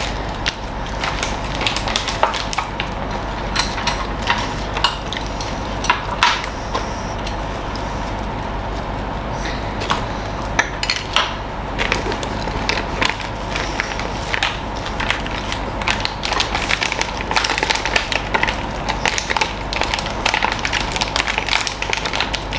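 Close-up crunching and crackling from eating and wrapping: dry rice paper sheets and lettuce leaves are handled, and crispy bánh xèo crepe is chewed. The many quick crisp crackles run over a steady low hum.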